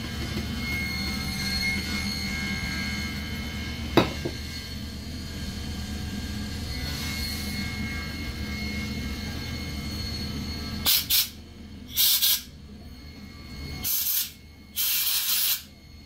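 Short bursts of pressurized hissing, four in the last five seconds, the last held almost a second, typical of blowing out or spraying carburetor parts. Under it runs a steady shop hum, with one sharp click about four seconds in.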